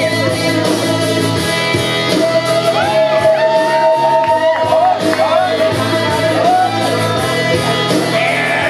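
Music with a voice singing, over a steady held note in the accompaniment.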